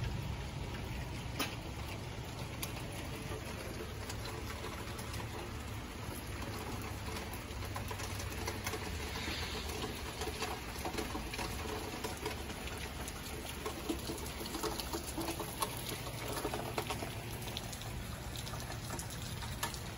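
Outdoor ambience: a steady low hum under faint scattered ticks, with birds calling.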